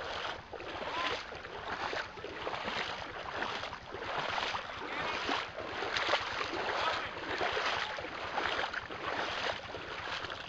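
Footsteps wading and splashing through shallow creek water at a steady walking pace, one splash about every second.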